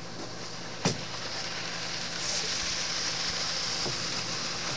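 Steady outdoor hiss of wind and water, a little louder from about two seconds in, with one sharp click about a second in.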